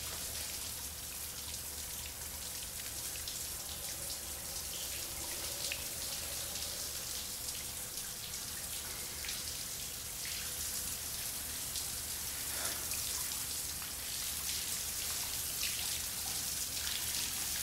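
Shower water running and spattering on a tiled floor: a steady hiss with occasional drips and splashes.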